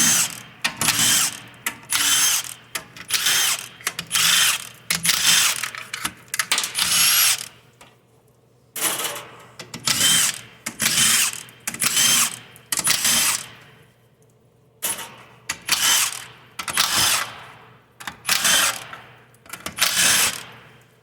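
A handheld power tool, a drill or driver, runs in short spin-ups of under a second, about one a second, with two brief pauses. It is backing out the oil pan bolts of a 4L60E automatic transmission.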